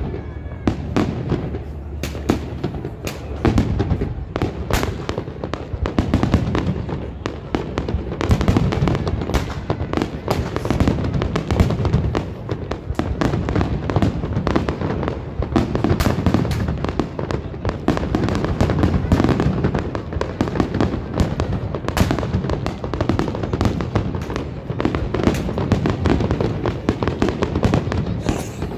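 Fireworks display: aerial shells bursting one after another, a dense run of sharp bangs, several a second, over deep booms.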